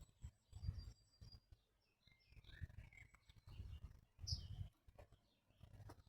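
Faint small-bird chirps, a few short high calls in the middle, over scattered low thuds and rustles.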